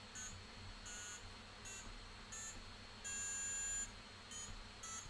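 Brief, faint high-pitched electronic beeps from a circuit-bent toy keyboard's sound chip through its small speaker, as a clip lead touches different resistors on the keyboard's resistor bar. Several short beeps come roughly every half second to second, with one longer, louder steady tone a little after three seconds in.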